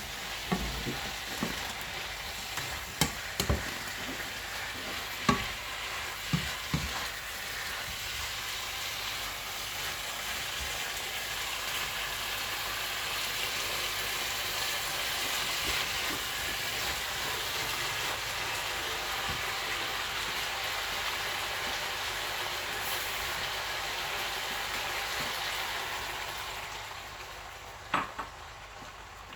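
Stir-fry sizzling and frying in a pan, a steady hiss, with several short knocks in the first seven seconds. The sizzling dies down near the end, followed by a couple more knocks.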